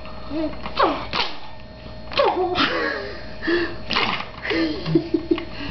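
Baby giggling and squealing in short, breathy bursts, roughly one a second, with a quick run of chuckles near the end.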